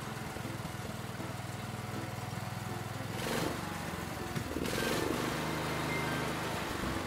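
Cartoon tractor engine sound effect, a steady low chugging. Two short bursts of hiss come a little before and just after the middle.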